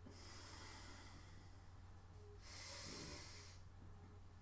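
Faint, slow breathing from a person holding a yoga pose: two long airy breaths, the first at the start and the second about three seconds in, over a steady low hum.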